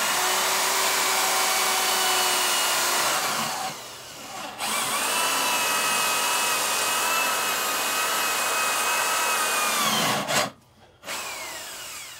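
Drill with a step bit cutting into steel angle iron, running with a steady whine in two long stretches with a short dip about four seconds in. A brief louder burst comes as it stops near the end, followed by a short weaker run.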